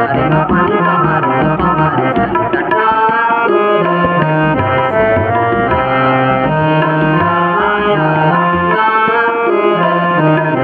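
Tabla playing a steady rhythm under a harmonium melody, the accompaniment of a Sikh shabad kirtan in raag Sarang.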